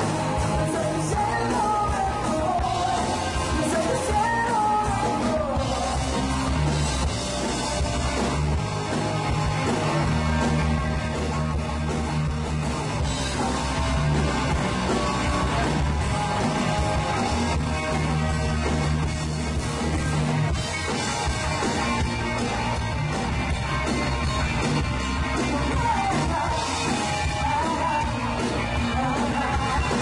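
Live rock band playing a song with a singer, guitars, bass and drums, recorded from within the audience.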